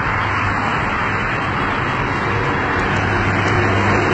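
Road traffic passing: a steady rush of tyre and engine noise, with a low engine hum that grows a little louder about three seconds in as a car approaches.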